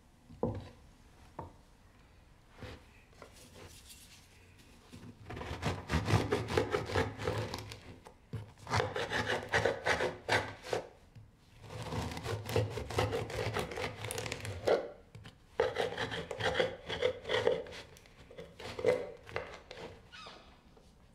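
A bread knife sawing through a crusty loaf on a wooden board: quick rasping strokes in several runs with short pauses, after a few light knocks at the start.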